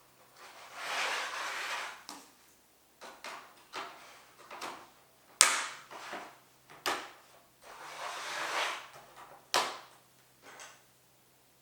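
Plastic playset pieces being handled and fitted together: two stretches of scraping and rustling, each about a second long, and several sharp clicks and knocks, the loudest about five seconds in.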